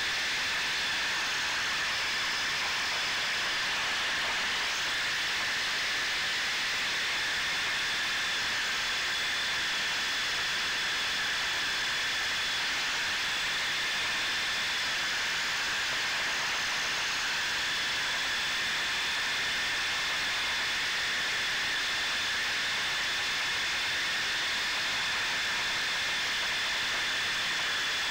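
Steady hiss with a faint, constant high-pitched whine underneath, unchanged throughout, picked up by the camera riding on an electric RC drift car.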